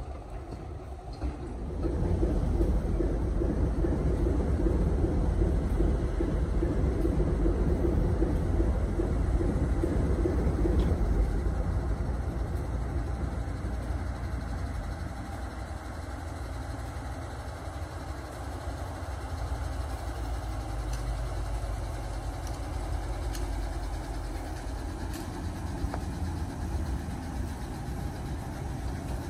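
Diesel locomotive engine running at low speed. It is louder through the first ten seconds or so, then settles to a steadier, quieter drone as a Class 03 shunter, with its Gardner eight-cylinder diesel, creeps up the line.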